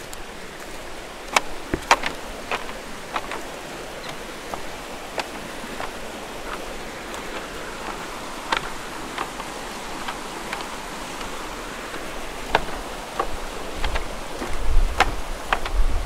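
Footsteps on a wooden footbridge: sharp, irregular taps every half second or so over a steady rush of flowing water. Low thuds come in near the end.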